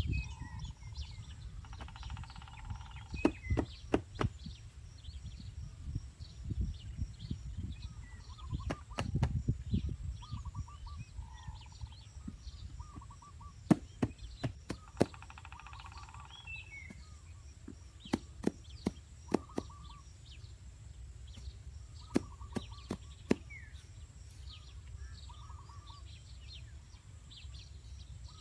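Birds calling in short repeated trills, with two longer buzzy rattles, over a low steady rumble. Scattered sharp clicks or knocks stand out above the birds, several in quick succession a little past the middle.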